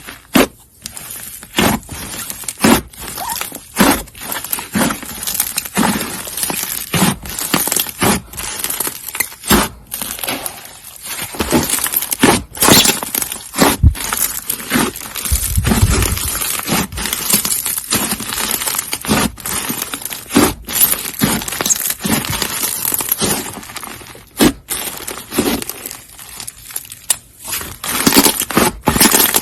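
Slime being squeezed and poked by hand, giving dense crackling and popping clicks.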